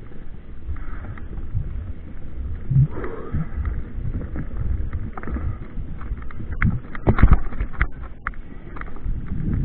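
Low rumbling wind noise on the microphone, with scattered knocks and rattles and a short burst of clatter about seven seconds in.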